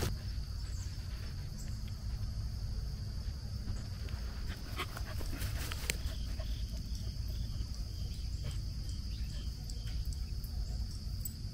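An old dog whimpering in a few short, faint whines about halfway through, over a steady high insect drone and a low rumble.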